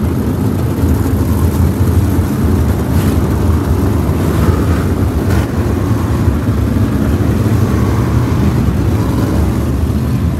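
A pack of 305 sprint cars' V8 engines running at slow pace under caution as the field circles the dirt oval, a steady low engine drone.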